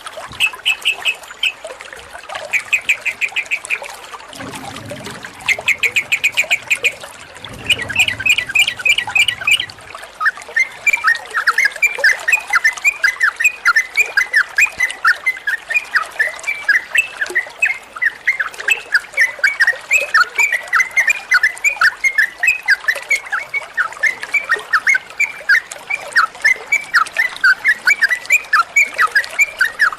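Sooty-headed bulbul singing: short, fast rattled bursts for the first ten seconds or so, then a long unbroken run of quick whistled notes, several a second. A low rumble comes in twice during the opening bursts.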